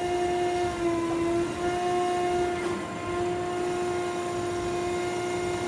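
Landis 3RH cylindrical grinder running with its hydraulics on and the workhead turning, a steady machine hum with a strong single tone and its overtones. The tone sags slightly in pitch about a second in, then steadies.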